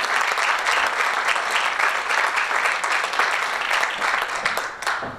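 Audience applauding, a dense patter of clapping that thins out near the end.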